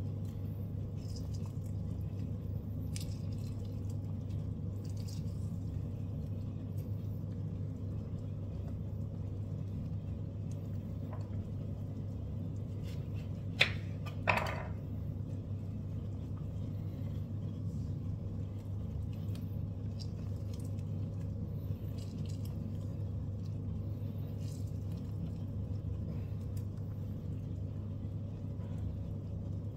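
A steady low hum, with two sharp knocks about half a second apart a little under halfway through.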